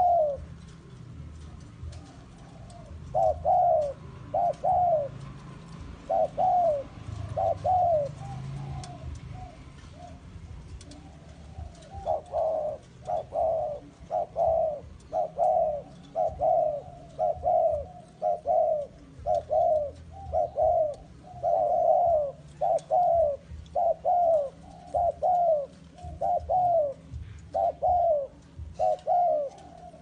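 Spotted dove cooing, its notes coming in close pairs: a few calls with a gap of several seconds, then a long steady series of coos repeated about once a second.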